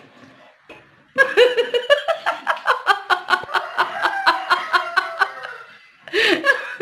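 People laughing hard in a long run of quick, even bursts that starts about a second in and lasts about four seconds, with a shorter laugh or exclamation near the end.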